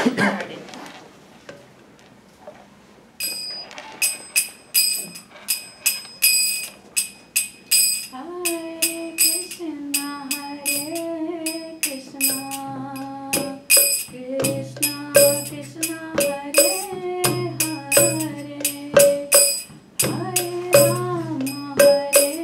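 Kirtan starting up: small brass hand cymbals (karatalas) begin a steady ringing beat about three seconds in, with a mridanga drum. A woman's voice starts singing a chant melody about eight seconds in, with long held notes.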